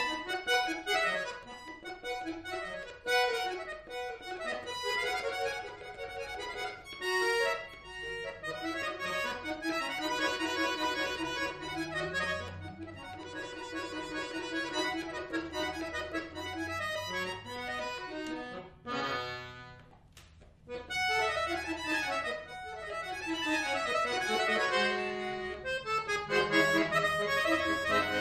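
Chromatic button accordion playing a solo classical piece, starting out of a moment's silence with quick, busy runs of notes. The playing breaks off briefly about two-thirds of the way through, then carries on.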